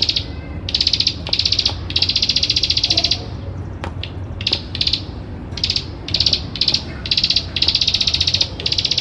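Ciblek sawah, a small prinia, giving its dry rapid-fire clicking trill ('ngebren') in repeated bursts of a fraction of a second to about a second each, with short pauses between. A steady low hum runs underneath.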